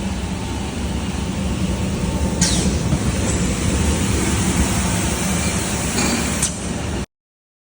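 Automatic CNC hinge drilling, tapping and cutting machine running with a steady mechanical din and a low hum. Two sudden sharp sounds come about two and a half seconds in and again near the end. The sound cuts off abruptly about seven seconds in.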